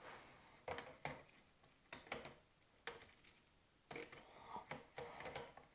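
Faint, scattered clicks and taps of metal parts, a dozen or so, some in quick pairs, as a scope in its mount is fitted onto an air rifle's rail.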